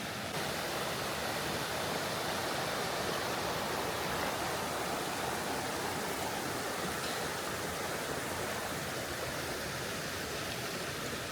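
Creek water running steadily, an even rushing sound.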